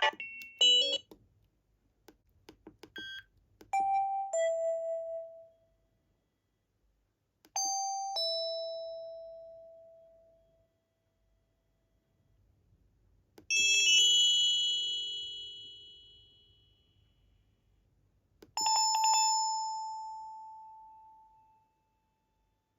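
Samsung SGH-C130 mobile phone playing a series of short alert tones: a few brief blips, then four bell-like chimes a few seconds apart. The first two chimes are falling two-note dings, and each chime rings out and fades over two to four seconds.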